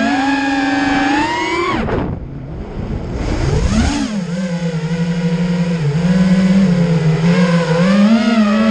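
Car engine revving: the pitch climbs, falls away sharply about two seconds in as the revs drop, then rises again and holds fairly steady with a slight waver.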